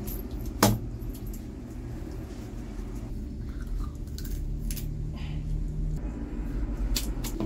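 A coconut knocking once, sharply, against a black iron plate about half a second in, with a short low ring; then small clicks and scraping as the husk is picked at by hand, over a steady low rumble.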